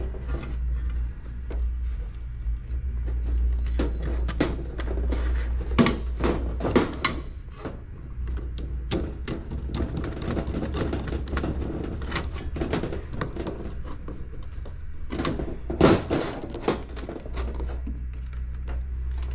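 Hands handling and fitting electrical wires on a heater kit's breaker and terminals atop a sheet-metal table: scattered clicks, taps and knocks, busiest about six seconds in and again near sixteen seconds, over a steady low hum.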